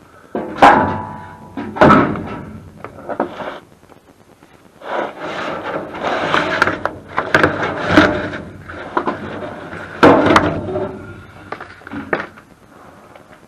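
A run of knocks and clatter from things being handled and set down, several sharp hits, the first with a short metallic ring, and a rougher stretch of rattling and shuffling in the middle.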